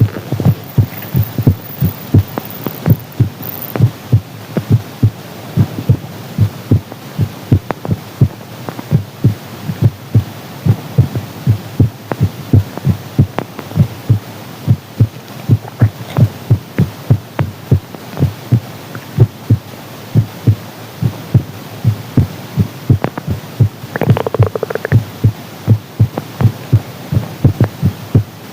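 A human heartbeat heard close up, a steady rhythm of low thumps, about two a second. A short, higher-pitched sound stands out briefly about 24 seconds in.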